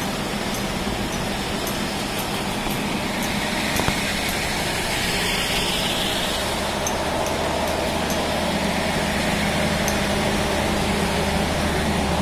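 Concrete floor-grinding machine running steadily as it grinds a wet platform floor: an even grinding noise over a low motor hum.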